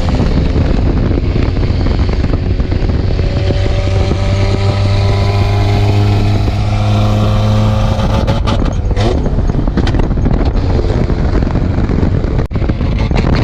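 Honda Civic engine with a rod knock held at high revs, running flat out with a steady note to blow it up. About eight seconds in the steady note breaks up into a rougher, clattering sound with sharp ticks, and there is a brief dropout near the end.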